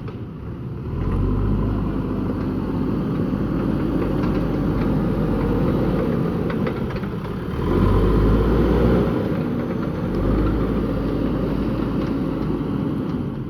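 Diesel engine of a JCB backhoe loader running at work, its note swelling louder a few times, most strongly about eight seconds in, with a few faint knocks in the middle.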